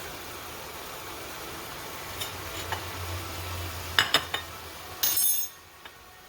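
Chopped onion and tomato sizzling in a pot while being stirred with a spoon. The spoon clinks against the pot a few times about four seconds in, then there is a short scraping burst, after which the sizzle is quieter.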